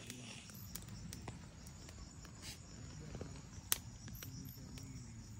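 Faint night ambience: a smoking pile of burning grass gives scattered small crackles and pops, with one sharper pop a little past the middle, over faint insect chirping.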